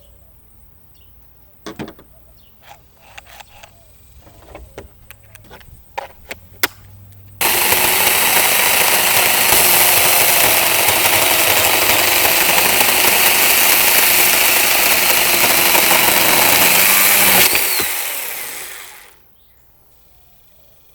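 Handheld battery-powered mini chainsaw handled with a few light clicks, then switched on. Its motor and chain run loud and steady for about ten seconds, then wind down after the trigger is released, in a test run after the chain tension has been adjusted.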